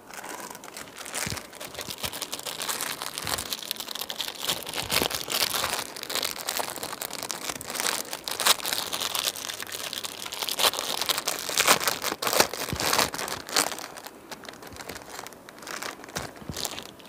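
Packaging crinkling and crackling close to the microphone as it is handled, a dense run of sharp crackles that swells and eases irregularly.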